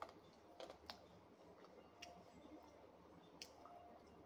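Quiet eating sounds from a meal of rice and pork eaten by hand: a handful of short, sharp clicks and smacks at irregular intervals, from fingers working the food on the plate and from chewing, over faint room tone.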